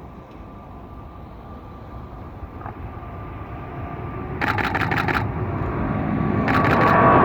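Jet airliner engines at take-off power, a rumble with a steady high whine, growing steadily louder. Partway through and again near the end, a Canon 5D Mark III's shutter fires in quick bursts of several frames each.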